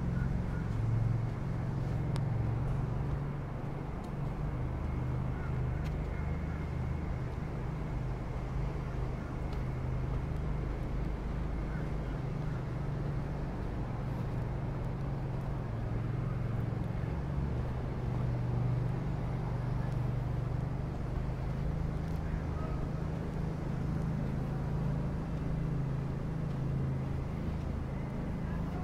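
Car being driven: a steady low rumble of engine and tyre noise.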